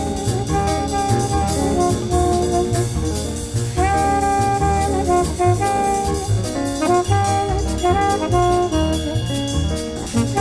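Jazz music with brass instruments playing held melody notes over a steady beat.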